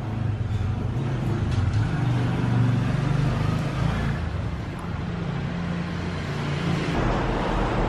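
A motor vehicle's engine running: a low hum that swells in the middle and then fades.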